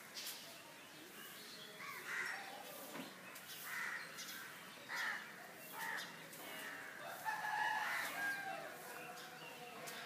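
Rooster crowing. Its longest and loudest call comes about seven seconds in, after several shorter bird calls.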